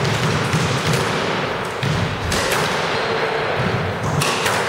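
Squash ball knocks on the court: single sharp hits about a second apart, then a quick cluster of hits a little after four seconds as a rally gets going.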